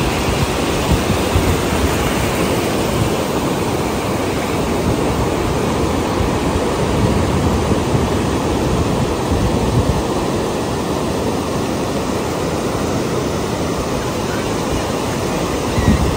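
Pacific Ocean surf washing up a flat sandy beach: small waves breaking and running up the shore in a steady rushing wash that swells and eases.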